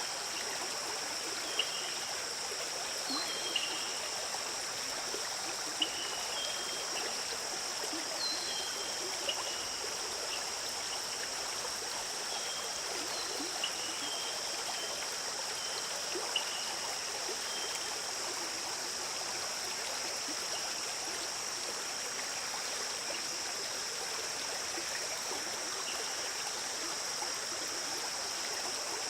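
Stream water flowing and trickling steadily, under a steady high-pitched drone, with short high chirps scattered through the first half.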